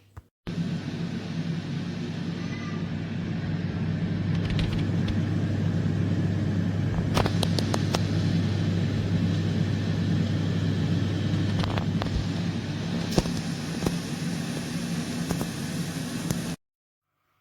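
A steady machine hum with a rushing of air and a few sharp clicks over it, cutting in abruptly just after the start and cutting off abruptly near the end.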